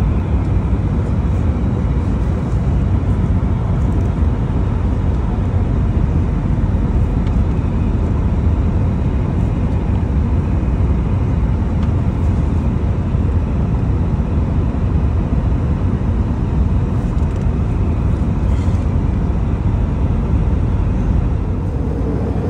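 Steady, low-heavy cabin noise of an Airbus A321-200 airliner in cruise: engine and airflow noise heard from inside the passenger cabin.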